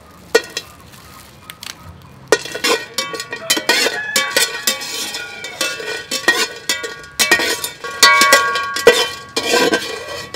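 Metal spoon stirring in an aluminium pot of water, clinking and scraping against the pot's sides and bottom with a ringing metallic tone. A couple of light knocks at first, then from about two seconds in a busy, continuous run of clinks.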